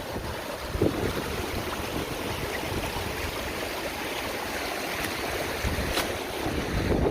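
Wind blowing across the microphone: a steady rushing noise with uneven low buffeting.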